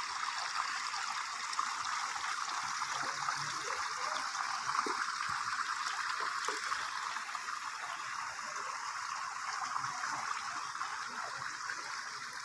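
Water running steadily from an inlet pipe and splashing into a fish pond.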